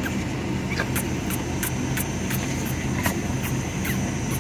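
Diesel car engine idling steadily, with a run of short crunching clicks about three a second from an animal chewing a carrot.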